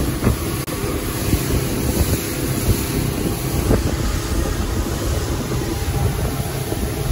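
Motorboat running at speed across open water: steady engine and hull-on-water noise, with wind buffeting the microphone.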